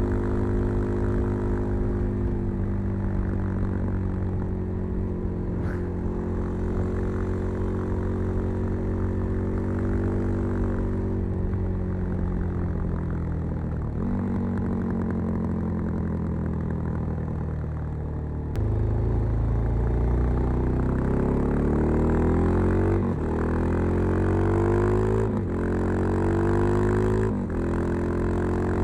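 Suzuki DR-Z400 supermoto's single-cylinder engine with a Keihin FCR39 carburettor, breathing through a LeoVince V3 silencer with its dB-killer in, under way. For the first half the revs sink slowly as the bike rolls off, with one step down. Past the middle it pulls away, the revs climbing through three quick upshifts.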